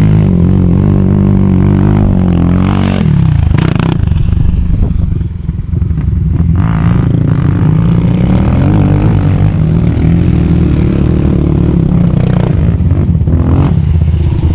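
ATV engine running hard, its revs rising and falling, with a brief dip in loudness about five seconds in.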